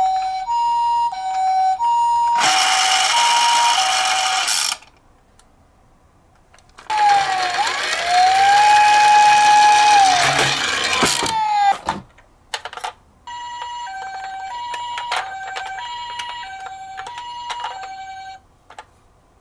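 Toy ambulance minicar's electronic two-tone 'pee-poh' ambulance siren, alternating between a high note and a low note. About seven seconds in, a loud rushing noise from the toy rolling across a wooden board runs under a siren tone that rises, holds and falls for about four seconds. A few clicks follow before the two-tone siren starts again.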